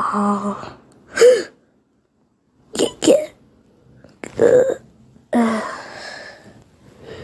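A cartoon character's voice sobbing in short, broken cries, five or so with pauses between, several falling in pitch.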